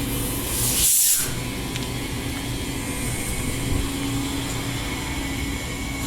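Electric suburban train at the station platform, a steady rumble with a low hum, and one short, loud hiss about a second in.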